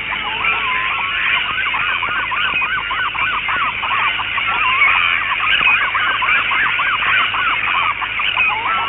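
A large flock of birds calling: many short, overlapping honking calls that rise and fall in pitch, a continuous din.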